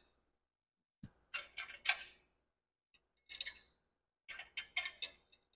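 Light metallic clinks and ticks of bolts, washers and nuts being handled against a steel seat bracket, in about four short bunches with quiet between.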